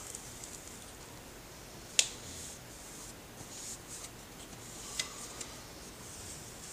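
Metal drywall knife scraping lightly over wet knockdown texture on a ceiling, flattening the compound's peaks. Faint rasping strokes, with a sharp click about two seconds in and another about five seconds in.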